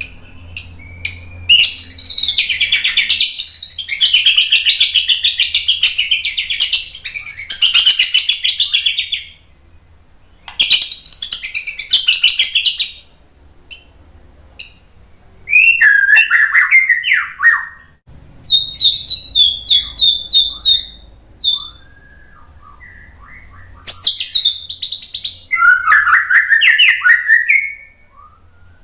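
White-rumped shama singing loudly: long bursts of rapid, high chattering notes broken by short pauses, with clearer falling whistled phrases in between.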